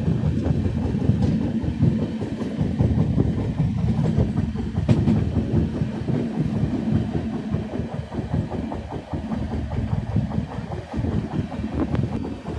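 Passenger train running along the track, heard from aboard: a steady low rumble of wheels on rails with a few sharp clicks.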